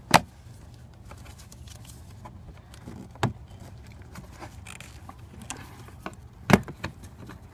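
Sharp plastic clicks as the clip on a car door's release cable is squeezed and worked loose from the door panel: a loud click at the start, a softer one about three seconds in, and another loud one near the end, with a few faint ticks between.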